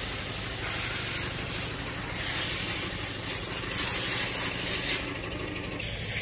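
Compressed-air paint spray gun hissing in on-and-off stretches while primer is sprayed, over a steady low machine rumble. The hiss drops out briefly about five seconds in, then resumes.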